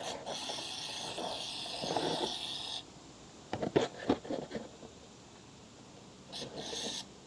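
Aerosol can of WD-40-style lubricant spraying onto a motorcycle chain: one long hiss of about three seconds, then a short burst near the end. A few sharp clicks or knocks come between the two sprays.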